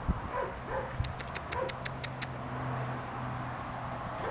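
Short animal calls repeating every second or so, with a quick run of about seven sharp clicks a little after a second in and a steady low hum underneath.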